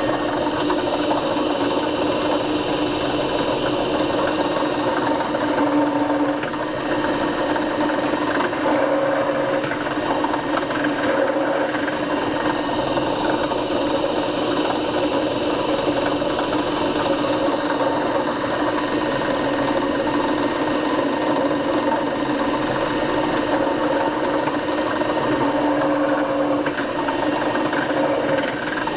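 Drill press running with a steady motor hum while a number 6 tap drill bores holes into a walnut board.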